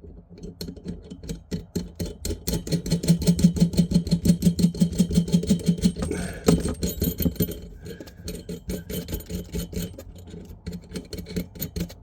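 A rapid run of small metallic clicks, about seven a second, densest for several seconds in the middle with a louder knock about six and a half seconds in, from the new kitchen tap's metal clamp fixings being worked and tightened.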